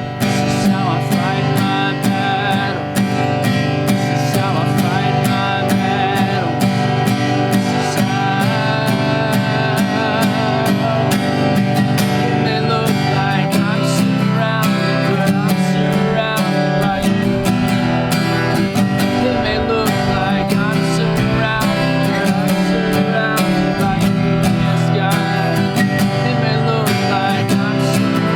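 Worship song music: acoustic guitar strumming steadily, with a wavering melody line held above it.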